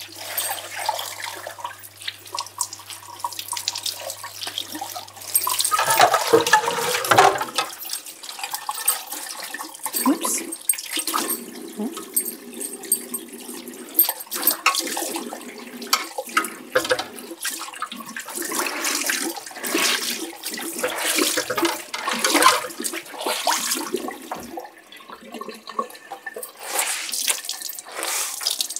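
Tap water running into a sink and splashing over wet cloth as hands rinse and squeeze dye-soaked fabric. It comes in louder, splashier spells about six seconds in and again around twenty seconds.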